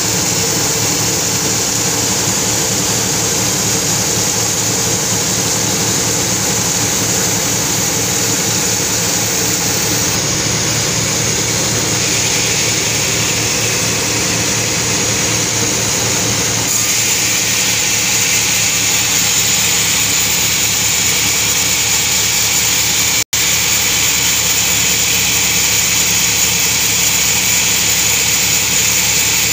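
Sawmill saw and its drive engine running steadily, a loud even drone with a bright high hiss over it. The sound shifts slightly twice and cuts out for an instant about two-thirds of the way through.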